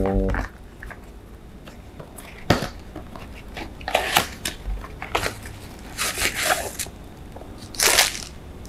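Handling of a cardboard product box and the plastic-wrapped tumbler slid out of it: a sharp tap, then several short spells of cardboard and plastic rustling and crinkling.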